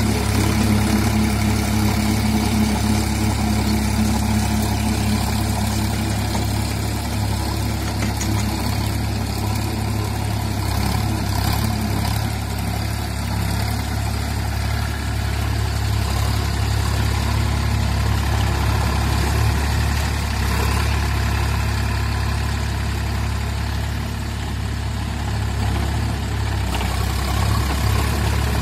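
Sonalika tractor's diesel engine running steadily under load while driving a Shaktiman rotavator through flooded paddy mud.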